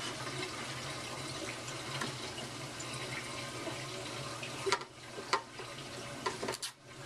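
Steady sound of water running in a reef aquarium's plumbing, with a low hum under it. In the second half come a few sharp clicks and taps from handling the plastic PVC slot tube and screen.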